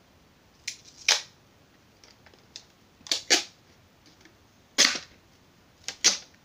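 Clear packing tape being pulled off its roll in several short, sharp rips, with brief pauses between tugs.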